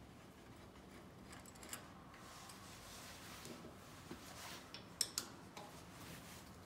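Faint metallic clicks and scrapes of a hex key and hand working the cap screws that hold a lathe apron to the carriage. The sharpest click comes about five seconds in.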